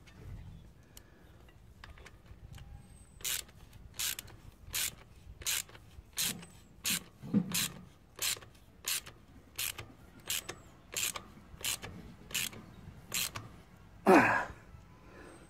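Ratcheting driver clicking in even strokes, a little more than one a second, as it tightens a worm-drive hose clamp around a bike fork and torque arm. Near the end comes one louder clank with a short falling squeal.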